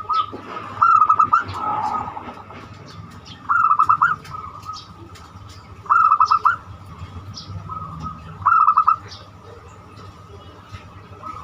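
Perkutut (zebra dove) with the banyumili voice cooing: four short phrases of rapid staccato coos, about two and a half seconds apart. Faint chirps come between the phrases.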